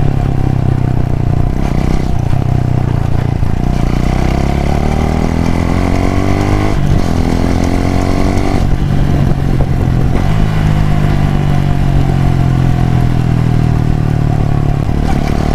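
Suzuki Gixxer 250's single-cylinder four-stroke engine recorded close at the exhaust. It runs steadily, then its pitch climbs twice with a short break between, then it settles back to steady running.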